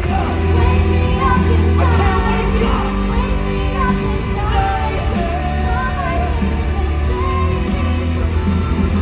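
Loud pop music with singing over a heavy, steady bass, as heard from a stage show's sound system.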